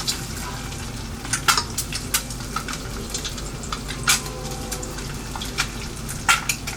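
Egg frying in a pan, sizzling steadily, with several sharp clicks of a utensil against the pan as the egg is lifted out.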